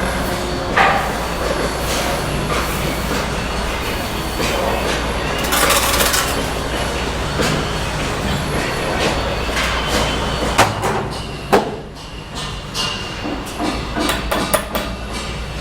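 Bricklaying on cement bricks: a few sharp knocks of a trowel tapping bricks down into their mortar bed, over a steady low rumble that drops away about ten seconds in.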